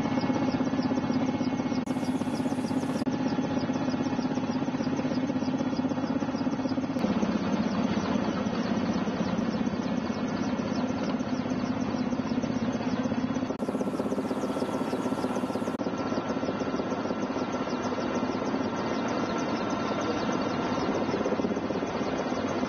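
Steady engine and rotor noise of a Peruvian Army helicopter in flight, heard from inside the cabin with the side door open. Its low drone drops to a lower pitch about seven seconds in.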